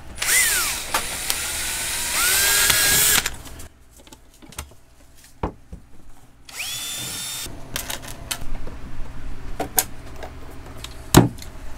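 Cordless drill drilling holes in a wooden cabinet door for new knobs: one run of about three seconds at the start, its pitch dipping and then climbing, and a shorter run about six and a half seconds in that rises to a higher whine. After that come light clicks and knocks as a knob is fitted, with one sharp knock near the end.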